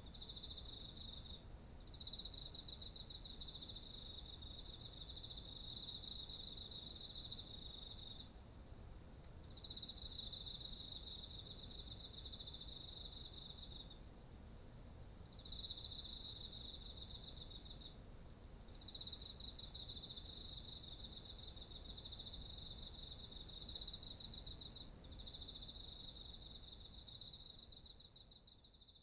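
Chorus of autumn insects, crickets among them: one unbroken high trill, with a lower pulsing trill that comes in bouts of a few seconds with brief breaks. It fades out near the end.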